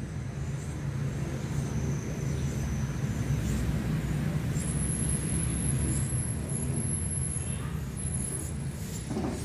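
Low, steady rumble of a motor vehicle's engine, growing louder a few seconds in and easing slightly near the end.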